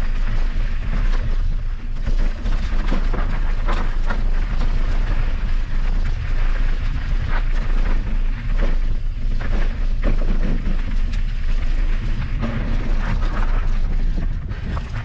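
Mountain bike rattling and knocking as it rides over a rough dirt trail, with a heavy low rumble of wind buffeting the microphone.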